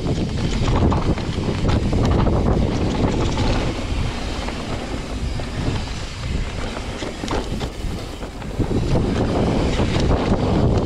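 Mountain bike riding fast down a dirt forest trail: wind buffeting the microphone over the rumble of knobby tyres on dirt, with scattered knocks and rattles from the bike over rough ground. It eases off for a few seconds in the middle, then picks up again.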